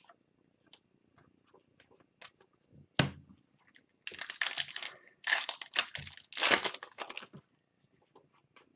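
Foil hockey-card pack (Upper Deck Series 2 hobby) being torn open in three long rips, after a single sharp knock about three seconds in. Light clicks of cards being handled come and go.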